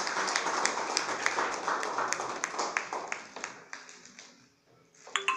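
A small group of people applauding. The clapping thins out after about three seconds and dies away about four and a half seconds in.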